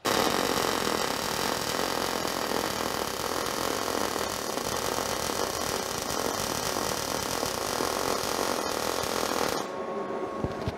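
MIG welder arc crackling steadily as a bead is laid on steel square hollow section. It starts abruptly and cuts out about a second before the end.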